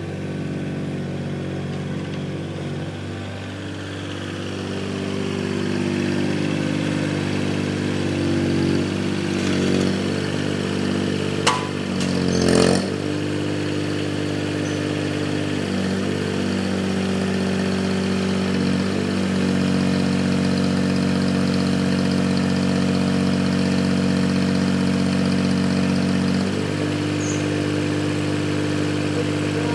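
Takeuchi TB015 mini excavator's diesel engine running steadily, its note shifting several times as the machine is worked. A couple of short clanks come a little before halfway.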